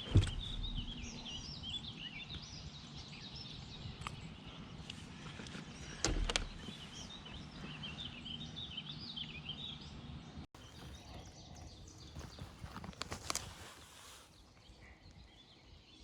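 Small birds singing, many short quick chirps over a faint outdoor hiss, fading out about ten seconds in. A sharp knock comes just after the start and another about six seconds in.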